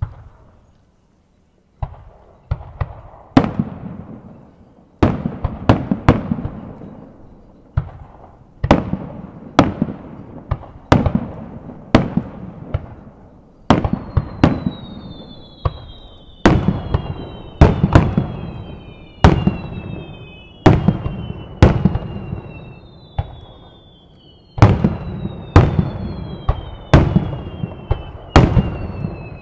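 Aerial firework shells bursting in quick succession, each sharp boom trailing off in a rolling echo, about one or two a second after a short pause near the start. From about halfway, several high falling whistles sound over the bursts.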